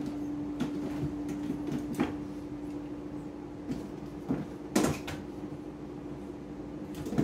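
A few light knocks and thumps as a kitten paws at a television screen and moves about on the TV stand, over a steady low hum.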